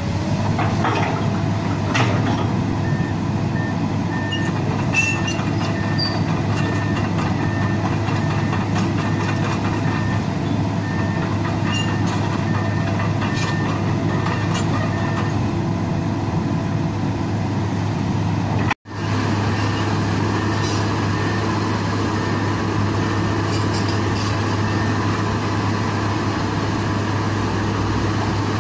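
Komatsu PC200-8 hydraulic excavator's diesel engine running steadily under hydraulic load as the boom, arm and bucket work and the upper structure swings, with a few metallic clanks. The sound cuts out for a split second a little past the middle.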